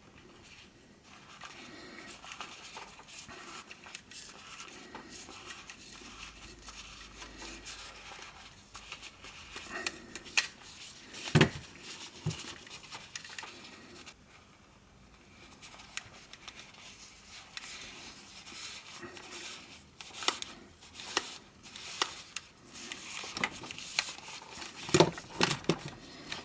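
Handling noise of leatherette ear pads being pressed and twisted onto the plastic ear cups of JBL Tune 510BT headphones: soft rustling with scattered clicks. There is a sharper click about eleven seconds in and a run of louder clicks and knocks in the last few seconds as the headphones are handled on a silicone mat.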